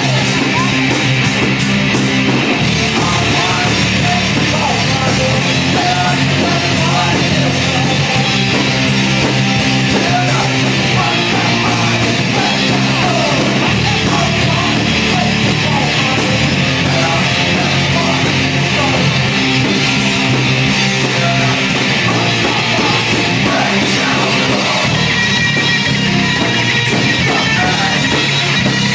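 Live rock band playing a loud pop-punk song: distorted electric guitars, bass and drums with a singer.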